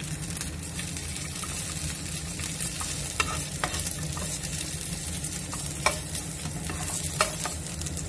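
Yard-long beans frying in olive oil in a non-stick pan: a steady sizzle, with a few sharp taps as a plastic spatula stirs them against the pan.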